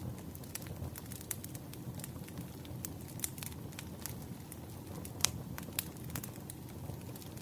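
Wood fire crackling: irregular sharp pops and snaps over a steady low rush of burning, with one louder pop about five seconds in.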